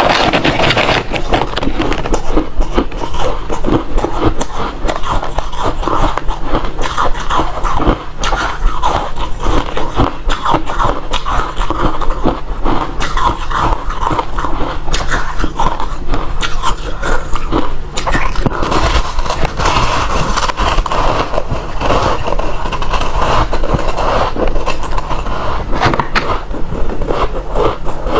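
Close-miked chewing of refrozen crushed ice: a steady run of loud, dense crunching and cracking as the ice breaks between the teeth.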